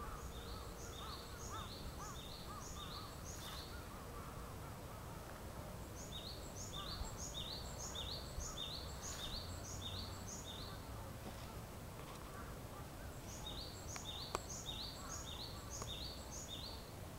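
Japanese tit singing its two-note 'tsu-pi' song, each high note dropping to a lower one, in three bouts of about six phrases each. Fainter, lower calls of another bird run under the first bout.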